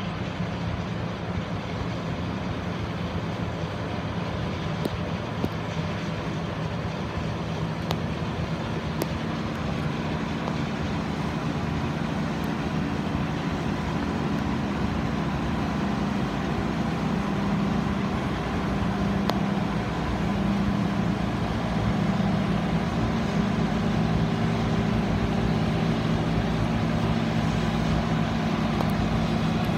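John Deere combine harvester running steadily while harvesting grain, a constant machine drone that grows louder as the combine draws closer.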